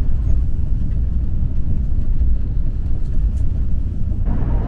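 Steady low rumble of a KTX-EUM high-speed train running at about 189 km/h, heard inside the passenger cabin. Near the end the noise turns brighter and hissier.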